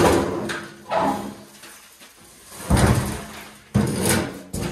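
Steel pickup tailgate clunking and banging as it is lifted off its rusty hinges and handled: a sharp bang right at the start, then several more heavy metal knocks.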